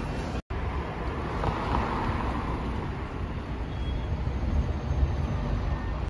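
Road traffic on a city street: a steady rumble of cars and other vehicles passing. There is a brief dropout about half a second in where the recording is cut.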